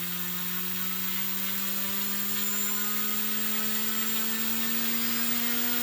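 Racing quadcopter's four 2204-size 2300 kV brushless motors spinning its propellers: a steady whine whose pitch rises slowly.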